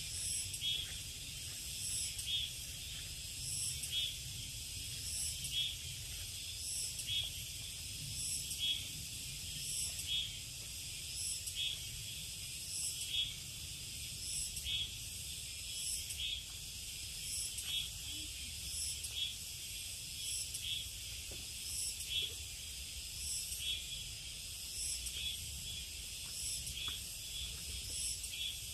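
A chorus of summer insects in forest, a steady high-pitched buzzing that swells in a regular pulse about every second and a half, over a low steady background rumble.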